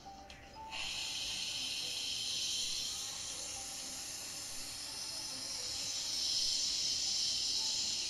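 Espresso machine steam wand blasting steam, a loud steady hiss that starts about a second in.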